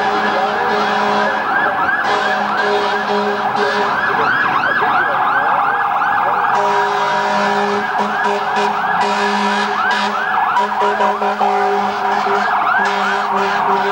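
Several emergency-vehicle sirens wailing and yelping at once, their rising and falling pitches overlapping continuously, with steady lower tones coming and going underneath.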